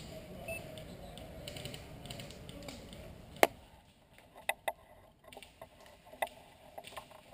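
A low steady rumble, then one sharp snap about three and a half seconds in, followed by a few lighter scattered clicks.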